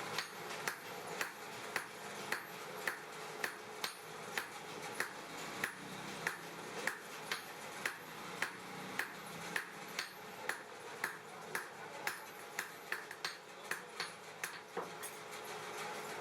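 Hand hammer striking hot steel on an anvil while forging blacksmith tongs: a steady run of ringing blows, about one every half second or so, coming faster toward the end and stopping shortly before the end, over a steady background drone.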